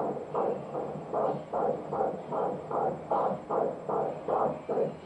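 Fetal heartbeat heard through a Doppler ultrasound machine's speaker: rhythmic pulses of blood flow at about two and a half per second, roughly 150 beats a minute.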